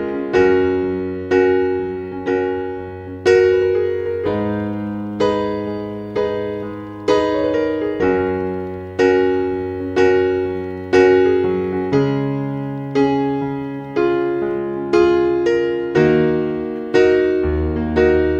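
Background music: a gentle piano piece, with notes and chords struck about once a second.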